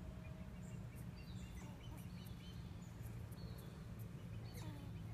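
Outdoor ambience: a steady low rumble with faint, scattered high chirps that sweep downward.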